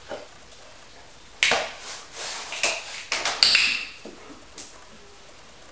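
A few sharp knocks and taps as a large dog's paws and claws hit an empty plastic crate and the tiled floor: one about a second and a half in, then a quick run of them around the third second.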